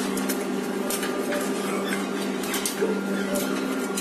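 Light metallic clinks and knocks as sheet-steel printer stand parts are handled and fitted by hand, over a steady machine hum.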